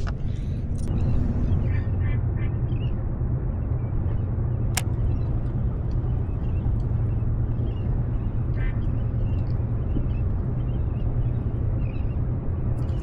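Boat engine running steadily with a low hum as the boat circles around, with a few faint bird calls over it and a single sharp click about five seconds in.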